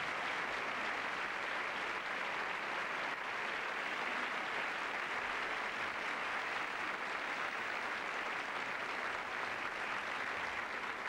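A large theatre audience applauding, a dense, steady clapping that holds at an even level throughout.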